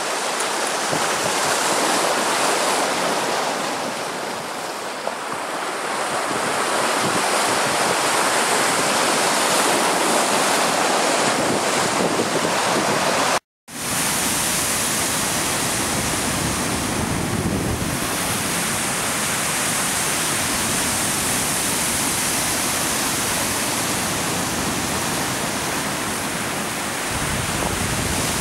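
Small lake waves washing through floating slush and ice chunks at the shoreline, a steady wash with wind on the microphone. The sound cuts out for a split second about halfway through, then picks up again with more low rumble.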